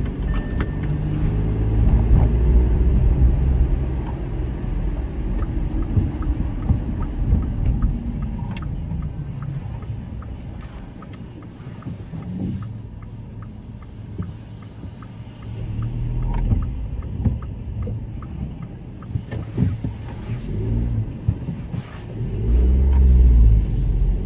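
Car heard from inside the cabin while driving on a wet city street: a low rumble of engine and tyres that is strong at first, eases off in the middle and swells again near the end.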